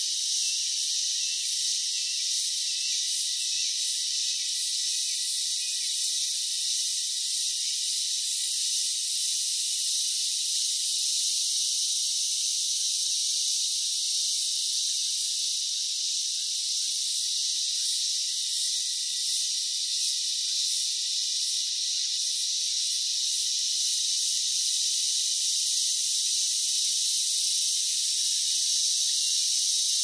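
A steady chorus of insects, a dense high-pitched buzzing hiss with nothing in the low range.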